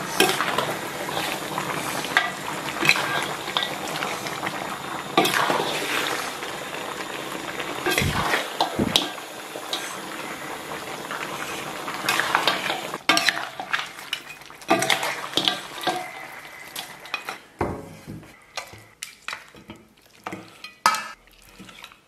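A metal ladle stirring and scraping stewed lamb ribs in a large steel wok, clanking against the pot over a steady sizzle. About halfway through, the sizzle drops away, leaving scattered clinks and knocks of the ladle.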